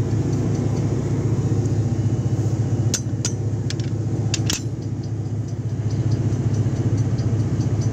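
A steady low engine hum from a running engine, with a few sharp metallic clicks about three to four and a half seconds in as the torque wrench and socket are handled on the head bolts.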